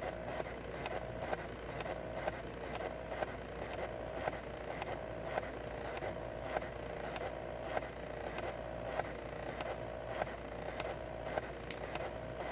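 Small 2 W diode laser engraver at work: its stepper motors whine steadily as the head steps along the burn, with a sharp click about twice a second.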